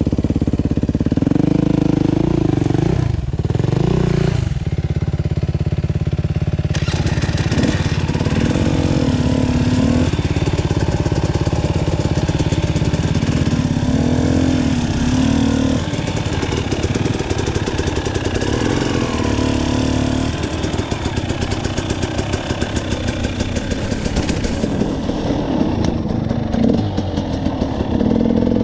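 KTM 300 XC two-stroke dirt bike engine running as the bike is ridden along a trail, its revs rising and falling with the throttle. About seven seconds in a steady hiss joins the engine as the bike gets moving.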